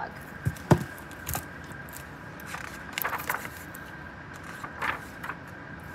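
A hardcover picture book being handled and its pages turned: a few sharp knocks and taps in the first second and a half, then short papery scrapes and rustles.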